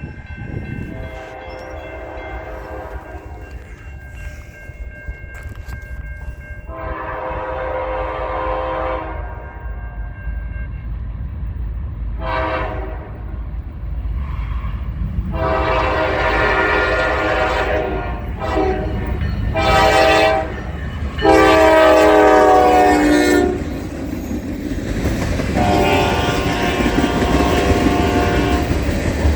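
Norfolk Southern diesel locomotive's air horn sounding a series of long and short blasts, about seven in all, over the train's low rumble, which grows louder as it approaches.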